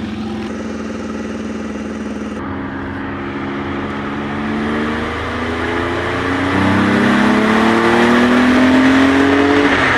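Peugeot 605 pulling away and accelerating, its engine note climbing steadily in pitch and growing louder. The pitch falls back about halfway through and again near the end as it shifts up a gear.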